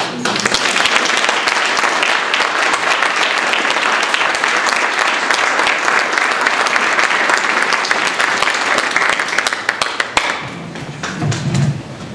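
Audience applauding, a dense steady clapping that dies away about ten seconds in.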